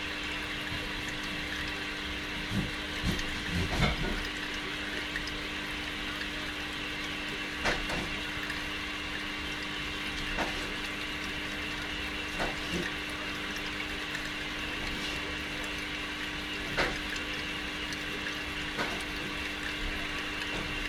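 Aquarium filter running: a steady trickle of moving water over a constant low hum. A few short knocks, in a cluster about three to four seconds in and then singly.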